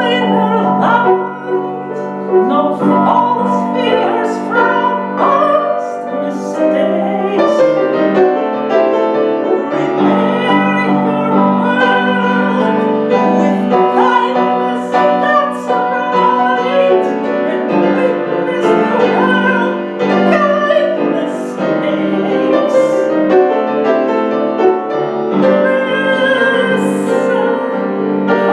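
A song played on piano, with a woman singing over it in a classical, operatic style.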